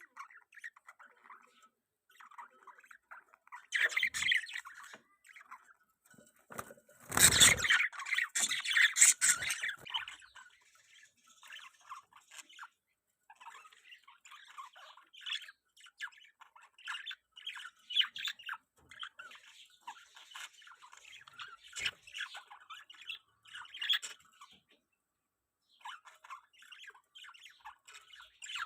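Pet budgerigars chattering and warbling in quick, broken bursts, with a loud, harsh burst about seven seconds in that lasts around three seconds.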